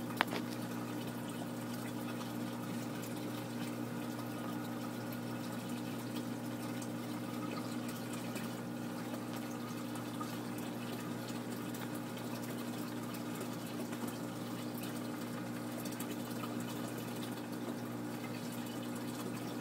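Saltwater aquarium sump running: a steady rush of circulating water with a low, even pump hum. There is a single sharp click just after the start.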